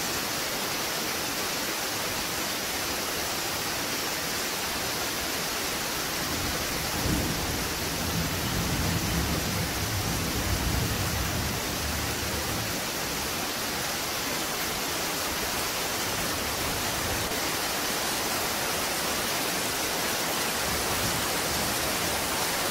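Steady rain falling, an even hiss throughout. About seven seconds in, a low rumble rises under it and lasts roughly five seconds before fading.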